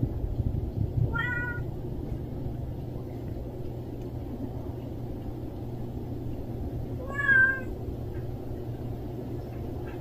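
Cat meowing twice: a short meow about a second in, then a louder, longer one around seven seconds, over a steady low background rumble.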